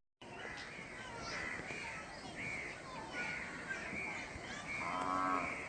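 Birds calling over and over, short arching calls about twice a second, against faint outdoor background noise. About five seconds in, a brief pitched sound with a clear tone rises above them.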